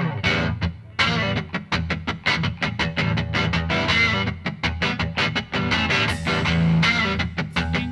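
Background music: a rapid run of plucked guitar notes with distortion, continuous throughout.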